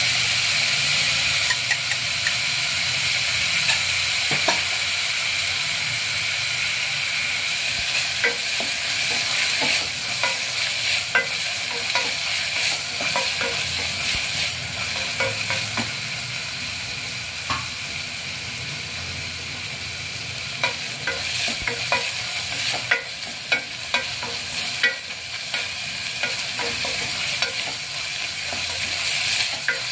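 Chopped onions and green chillies sizzling in hot oil in a stainless-steel pressure cooker, stirred with a wooden spoon that scrapes and knocks against the steel. The knocks come more often in the second half.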